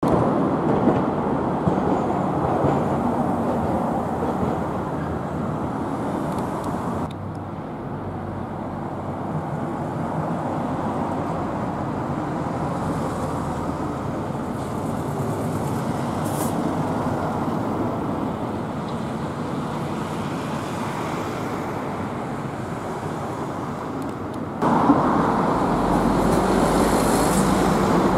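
City street traffic: road vehicles running steadily. The sound drops abruptly about 7 seconds in and jumps back up near 25 seconds, where the recording cuts.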